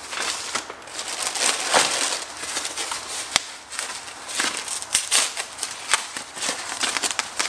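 Clear plastic bag and white packing wrap crinkling and rustling as hands unwrap a part, with many small crackles.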